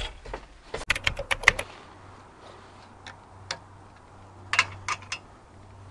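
Sharp metallic clicks of a wrench working a nut on the battery hold-down bracket: a quick run of clicks about a second in, then a few single clicks.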